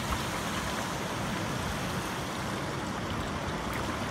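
Creek water rushing over rocks: a steady, even wash of noise.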